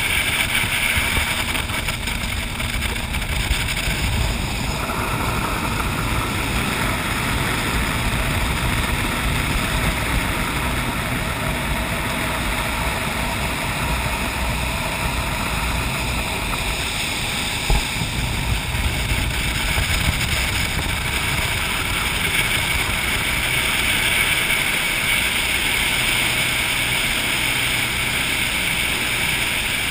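Jet boat running fast on a river: a steady rush of engine, churning water and wind over the low, side-mounted camera, with a single knock about eighteen seconds in.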